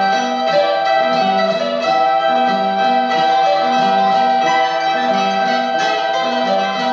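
Small folk-baroque ensemble playing: a baroque recorder holds long high notes over a repeating piano figure, with mandolins and a frame drum keeping a steady beat of about two strokes a second.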